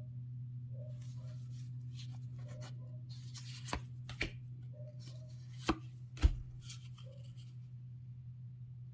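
Trading-card starter deck and its packaging being handled on a table: rustling, then four sharp taps on the hard surface, the last the loudest, over a steady low hum.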